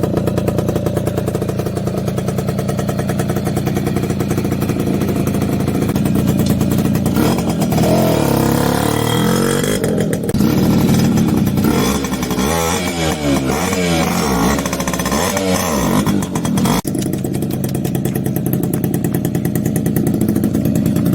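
Suzuki AX100's two-stroke single-cylinder engine idling, then revved up and down several times in the middle before settling back to idle.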